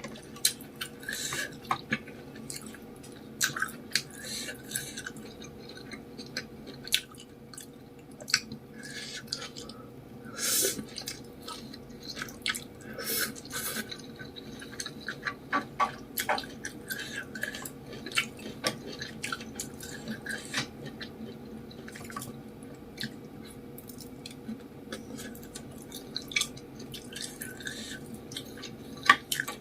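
Close-miked eating of spicy Samyang noodles: wet chewing and smacking with short clicks throughout, and a couple of longer slurps near the middle.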